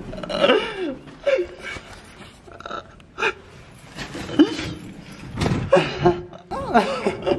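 Excited gasps, laughter and short unclear exclamations from people close to the microphone, with a couple of sharp knocks from the handheld camera being moved.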